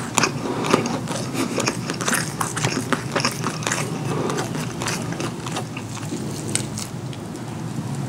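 Close-miked eating: biting and wet chewing of curry food, with many sharp, irregular mouth clicks and smacks.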